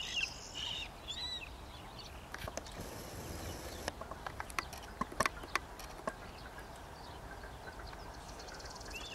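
A few short, high, arching bird calls in the first second and a half, followed by a scatter of sharp clicks, over a steady low outdoor background.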